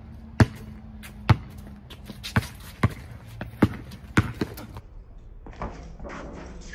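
A basketball being dribbled on a hard court: a run of sharp single bounces, roughly one every half second to second.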